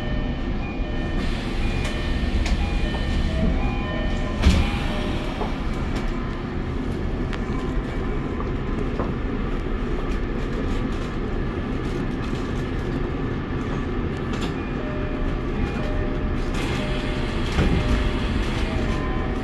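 Kobe Municipal Subway 6000-series train standing at a platform, its onboard equipment giving a steady low hum, with a sharp knock about four and a half seconds in.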